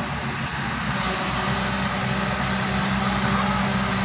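A steady mechanical drone: an engine or motor running at a constant pitch, with a hum and a wide hiss over it.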